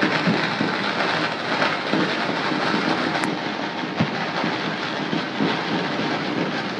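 Dense, continuous crackle of distant firecrackers and fireworks going off across the city, with one sharper bang about four seconds in.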